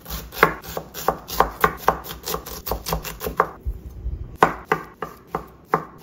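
Santoku-style knife chopping diced onion on a wooden cutting board in quick, even strokes, about four to five a second. The chopping pauses briefly a little past three seconds in, then goes on through garlic cloves.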